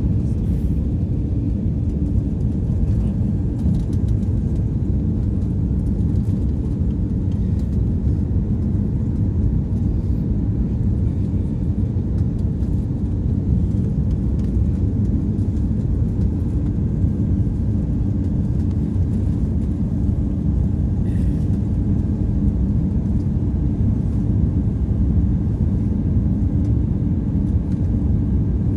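Cabin noise inside an Airbus A340-600 on final approach with flaps extended: a steady, even rumble of airflow and engines with a faint constant hum.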